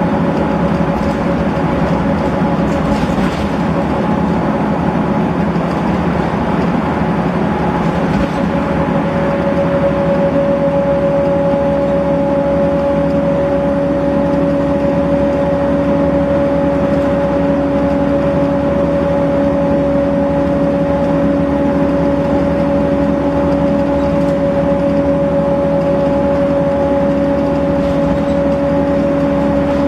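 Volvo B7RLE bus with its ZF automatic gearbox, heard from inside the passenger saloon while under way: a steady engine and drivetrain drone, with a whine that comes up about nine seconds in and then holds at one pitch, as at a steady cruising speed.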